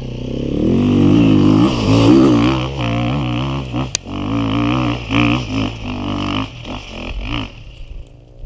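Dirt bike engine revving hard under load on a steep hill climb, its pitch rising and falling in repeated bursts as the throttle is worked, growing fainter near the end. A single sharp click about four seconds in.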